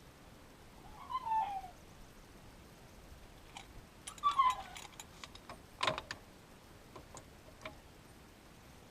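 Two short animal calls, each sliding down in pitch, about a second in and again just after four seconds, with a sharp clink near six seconds and a few faint ticks.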